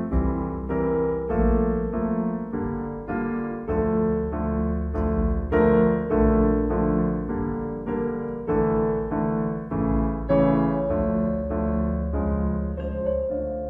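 Background music: a gentle piano piece, with notes struck at a steady pace of about two a second over a sustained bass.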